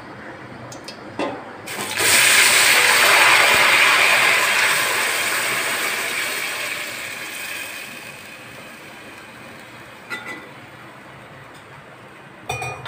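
Jaggery syrup poured into hot oil in a steel pot: a sudden loud sizzle about two seconds in that slowly dies away over several seconds. A couple of light clicks near the end.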